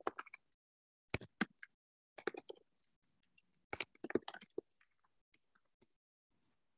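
Sharp clicks in four short bursts, then a few faint scattered ticks near the end.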